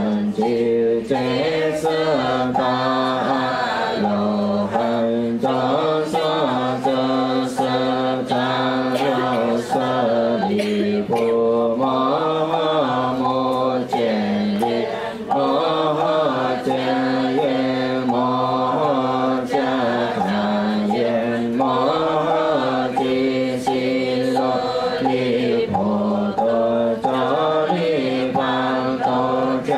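A seated congregation of mourners chanting a funeral liturgy together in unison from prayer booklets, a continuous chant that moves in pitch about once a second. Faint, roughly regular taps keep time under the voices.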